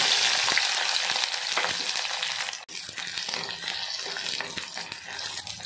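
Shallots sizzling as they are tipped into hot oil in a kadai: a loud frying hiss, strongest at first and slowly easing, while a steel spatula stirs and scrapes them against the pan.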